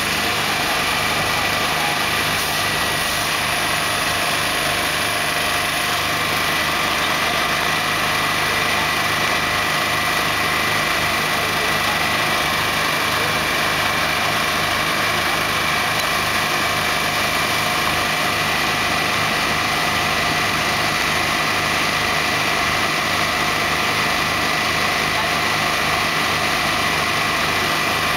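Heavy truck tractor unit's diesel engine idling steadily.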